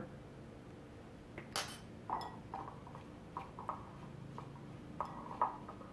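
A spoon stirring chopped pico de gallo in a small bowl, giving light, scattered clinks and taps against the bowl, with one sharper click about a second and a half in.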